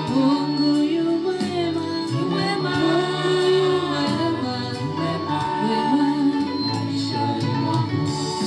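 A woman singing a Swahili gospel worship song into a microphone, amplified, over steady instrumental backing.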